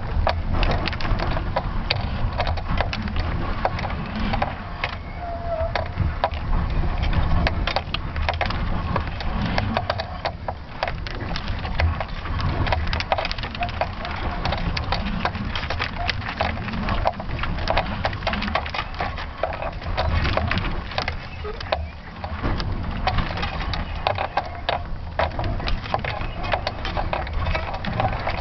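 Wind buffeting the microphone of a camera mounted at the bottom of a rising balloon payload, a heavy rumble mixed with dense, irregular crackling and knocking from the payload.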